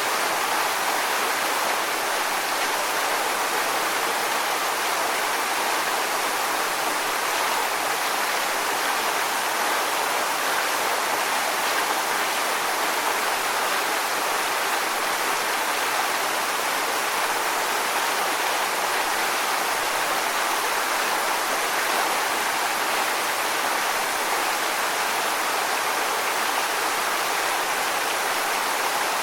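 Waterfall: water pouring and splashing onto rocks in a steady, even rush, strongest in the mid and upper range, with little low rumble.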